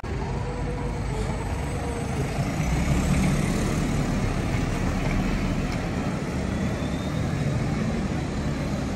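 Busy city street: a steady rumble of passing traffic, swelling for a moment about three seconds in, with faint voices under it.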